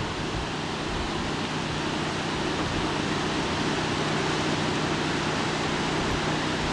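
Steady, even rushing noise of open outdoor air, with a faint steady low hum beneath it.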